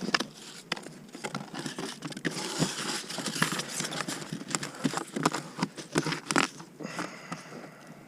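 Crinkling and rustling from something being handled by hand, with many scattered clicks and light knocks.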